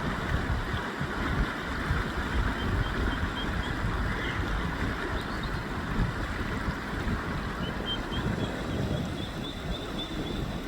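Fast-flowing river rapids rushing steadily over a waterfall stream, with a few faint, short, high chirps around the middle and toward the end.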